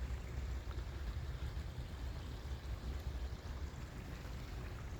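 Small creek flowing, a steady even rush of water over a low rumble.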